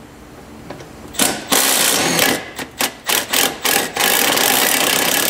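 Cordless power tool on a socket, run in a series of short trigger pulls and then a longer steady run near the end, backing out the mounting screw of a truck's city horn.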